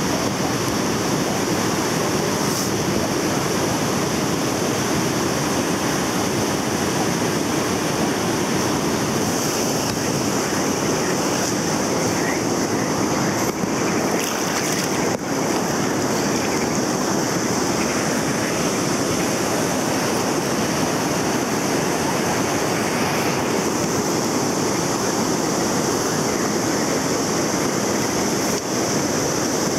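River rapids rushing steadily past an inflatable raft: a constant, even wash of white water.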